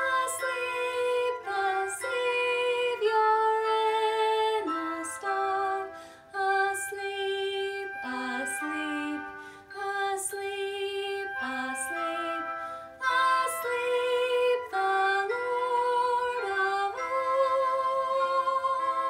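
A woman singing a slow, lullaby-like Christmas hymn over instrumental accompaniment, holding long notes with light vibrato.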